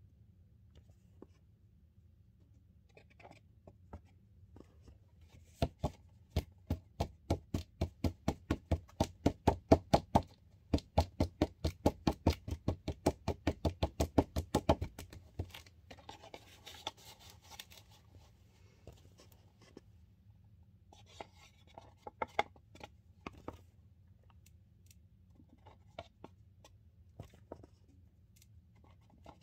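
Cardboard cornstarch box knocked rapidly on the floor, about four sharp knocks a second for roughly ten seconds, to settle and pack the powder down tight. Before and after, a plastic spoon scrapes as starch is scooped from a bowl.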